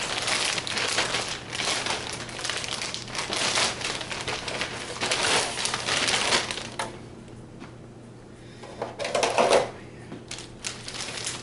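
Plastic packaging crinkling and crackling as a new clear RC car body is unwrapped: a dense run of crinkling for about seven seconds, then quieter, with one short loud burst about nine seconds in.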